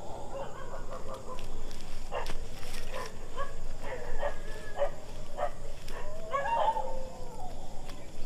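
An animal calling: several short calls, then a longer call that rises and falls near the end.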